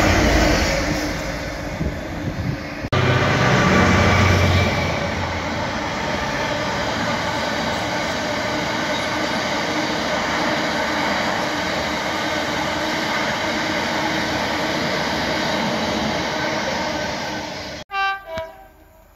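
A Class 66 diesel freight locomotive passes close by with its engine running. After a cut comes a long freight train of open box wagons: a heavy rumble at first, then the steady noise of wheels on the rails. Near the end the sound cuts to a much quieter scene, with a brief run of falling tones.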